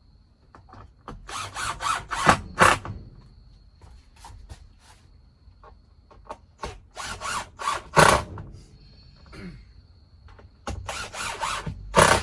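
Power drill driving screws into shiplap ceiling boards, in three runs of short bursts about a second and a half long each, with small knocks and clicks between them.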